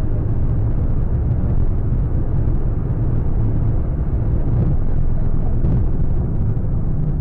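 Steady road and engine noise of a car driving at highway speed, heard from inside the cabin: a constant low rumble with a steady hum.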